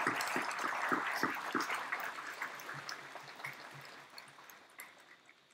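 Crowd applauding, many hands clapping at once, fading away over about four seconds.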